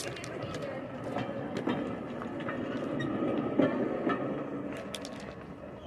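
Railroad handcar rolling along the track, its steel wheels rumbling with scattered clicks over the rails. It grows louder to a peak about three to four seconds in, then fades.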